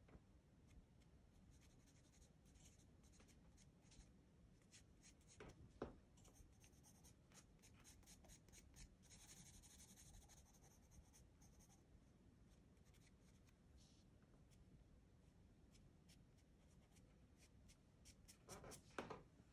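Charcoal pencil scratching faintly over textured pastel paper in short shading strokes, with a louder scrape about six seconds in and a few more near the end.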